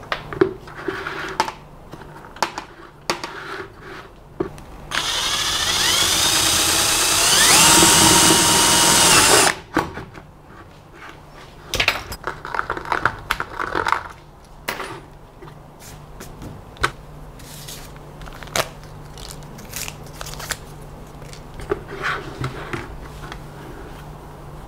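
Electric drill boring a hole through a plastic bucket, running for about four and a half seconds, its pitch stepping up partway through, then stopping abruptly. Scattered knocks and scrapes of the plastic bucket being handled come before and after.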